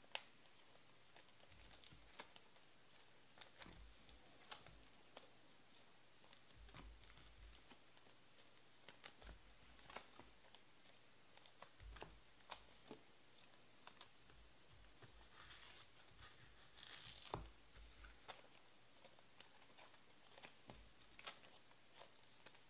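Faint, scattered clicks and soft plastic rustling of trading cards being handled and slid into plastic card sleeves, with a short crinkling stretch about 16 seconds in.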